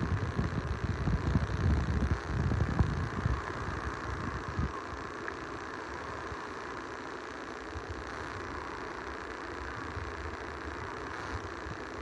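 Wind buffeting the microphone in gusts for the first four or five seconds, then easing, over a steady hiss of small waves washing onto a beach.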